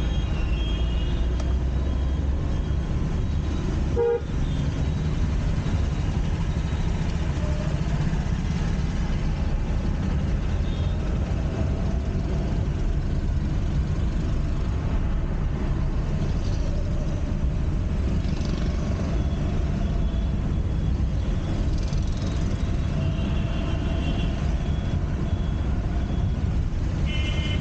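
Steady road and engine noise of a car driving in city traffic, heard from inside the cabin. Short vehicle horn toots sound at the start, about eleven seconds in, and several times near the end.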